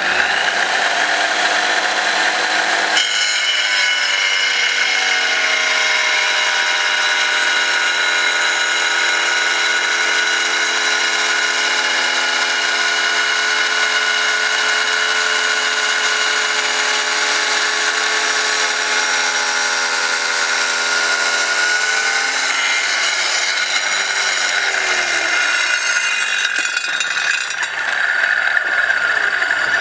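Electric wet tile saw with a diamond blade running and cutting through a rock, a steady whine with the grind of stone. The tone changes about three seconds in, shifts again after about twenty-two seconds, and cuts off right at the end.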